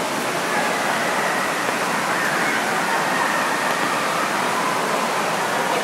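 Water park pool ambience: a steady rush of moving, splashing water with faint, indistinct voices in the background.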